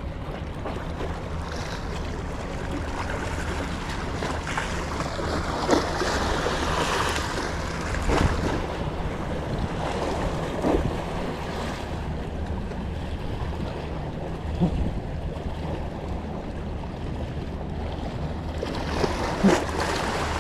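Wind buffeting the microphone over the wash of sea water, with a few short knocks scattered through.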